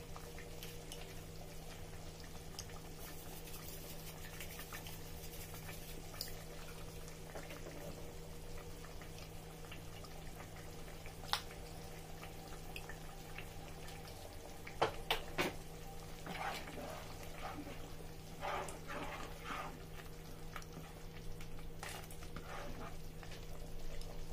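Thick blended tomato and pepper sauce bubbling in a pot on the stove, with scattered soft pops and a few sharper clicks over a steady low hum.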